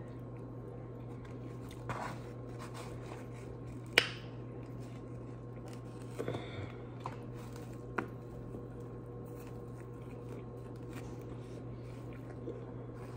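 Close mouth and hand sounds of eating a taco: soft squishy chewing with a few sharp clicks and crackles, the loudest about four seconds in, over a steady low hum.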